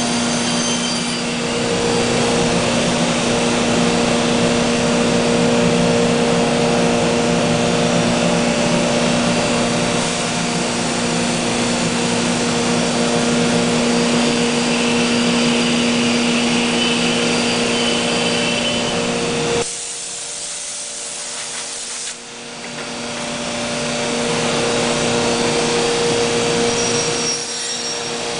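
CNC machining centre's router spindle running and cutting a wooden door, a steady whine over a loud hiss. About two-thirds of the way through, the low cutting noise drops out for a couple of seconds, leaving only a high hiss, then picks up again.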